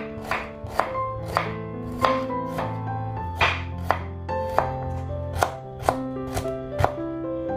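A chef's knife slicing shallots on a wooden cutting board, a sharp knock about twice a second as the blade meets the board, over background music.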